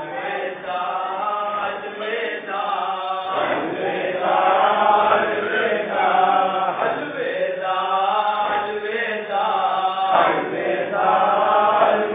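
A group of men chanting a Muharram nauha (mourning lament) together, in repeated sung phrases about three and a half seconds long, the lament chanted during matam.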